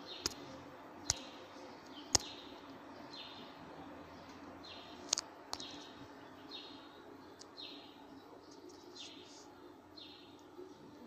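A bird repeating a short, high chirp about once a second, faint over a low steady hum. A few sharp clicks stand out in the first half.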